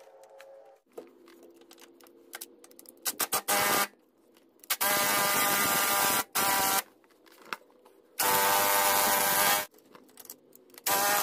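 Cordless impact wrench hammering in bursts of up to about a second and a half on the crankshaft pulley bolt of a GMC Acadia 3.6L V6, working the tight crank bolt loose.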